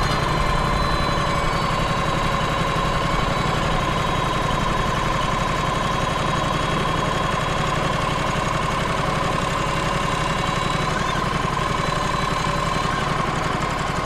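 Wood-Mizer LT35 hydraulic sawmill's engine running steadily, with a steady whine over it, while its hydraulic loader lifts a log onto the mill bed.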